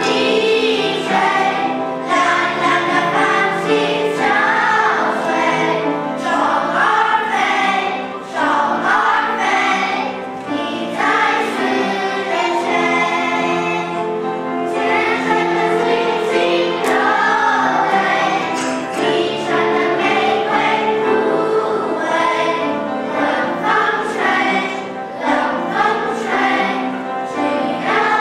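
A children's choir singing a song, held sung notes moving from pitch to pitch without a break.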